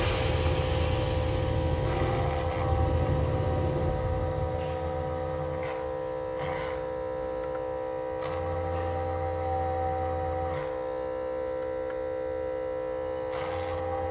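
Steady electrical hum from phone-repair bench equipment, holding several fixed tones. A deeper low hum cuts out, comes back for a couple of seconds in the middle, and returns near the end, with a few faint clicks in between.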